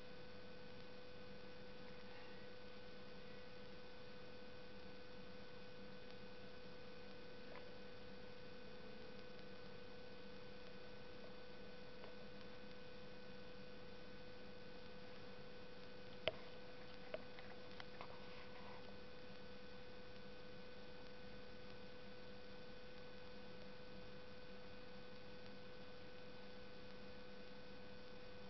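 Steady, faint electrical hum made of several fixed tones, with one sharp click about sixteen seconds in and a fainter click a second later.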